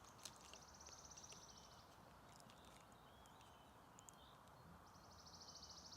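Faint woodland birdsong: a small songbird's rapid, high, even trill, given twice, once just after the start and again near the end, with a few soft short call notes between.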